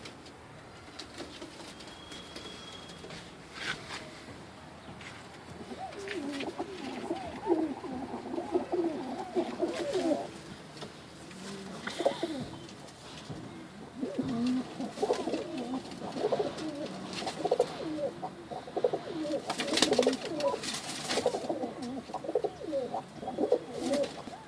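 Pigeons cooing, several calls overlapping. The cooing starts about six seconds in, pauses for a few seconds in the middle, then picks up again and continues, with scattered sharp clicks and taps.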